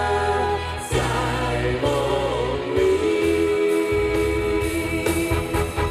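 Live band and several singers performing a Chinese pop song through a stage sound system, the voices holding long notes over bass and drums.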